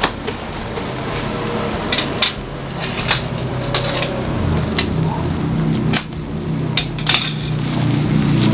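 Woven plastic sack being picked and torn open by hand: rustling with sharp crinkles and snaps every second or so, over a low steady hum that grows louder near the end.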